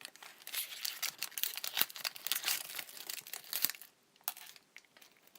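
Plastic wrapper of a Pokémon card booster pack crinkling and tearing as it is ripped open: a dense crackle for about three and a half seconds, then a few faint ticks.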